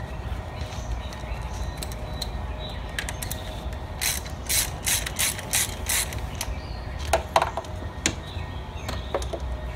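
Hand ratchet wrench clicking in a quick run of about six strokes, about three a second, while backing out the bolts that hold the spark plug wire brackets on the valve cover. A few separate metallic knocks follow near the end.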